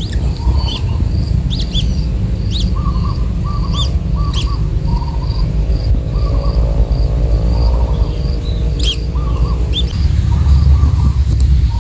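Birds chirping in short, sharp, irregular calls over a steady high insect drone, with a low rumble underneath that swells near the end.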